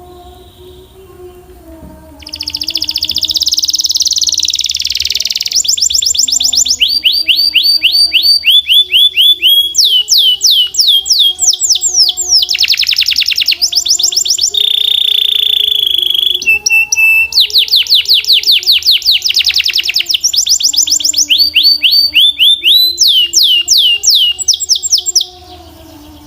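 Belgian canary singing a loud song of fast trills and rapid runs of repeated down-sweeping notes. The song starts about two seconds in and breaks off shortly before the end. Faint, soft background music plays underneath.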